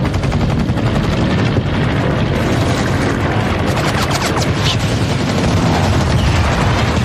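Battle sound of an air raid on warships: warplane engines droning low overhead with rapid machine-gun fire and blasts. A few falling whines come around the middle.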